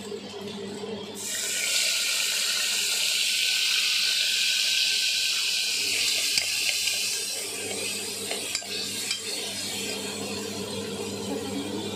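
Chopped tomatoes and green chillies dropped into hot oil with cumin seeds in a pressure cooker, setting off a loud sizzle about a second in that eases off after several seconds as they are stirred with a steel ladle. A few sharp clicks of the ladle against the pot come near the end.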